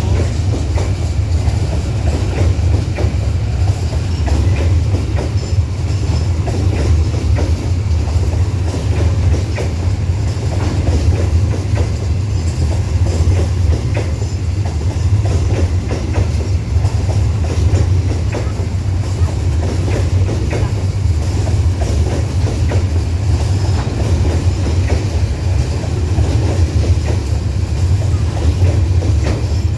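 Babaranjang coal train rolling past at close range: a steady, loud low rumble of the wagons on the rails, with scattered wheel clicks over the track.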